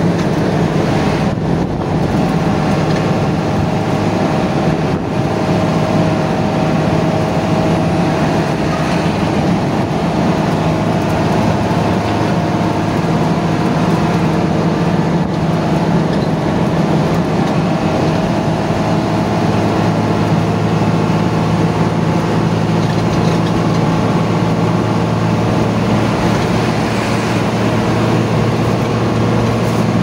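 Intercity bus cruising on a highway, heard from inside the cabin: a steady drone of the diesel engine and road noise, with a constant low hum that doesn't change in pitch.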